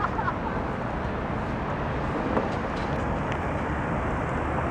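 Steady background rumble of city traffic.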